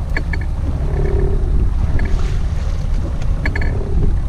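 Loud steady rumble of wind on the microphone and the boat's Evinrude 90 outboard running at slow forward over open sea. A few short clusters of clicks come about a quarter second in and again about three and a half seconds in.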